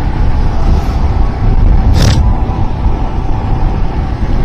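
Heavy wind rush and road noise while riding a Royal Enfield Himalayan motorcycle at highway speed, a steady low roar with the engine underneath. A brief louder hiss comes about two seconds in.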